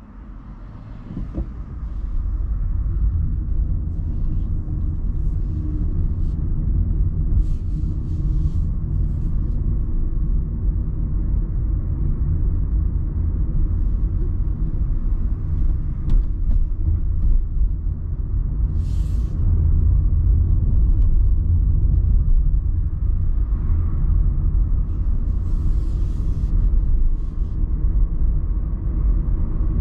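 Car driving on town roads, heard from inside the cabin: a steady low rumble of engine and tyres that swells about two seconds in as the car pulls away, with a few short hisses.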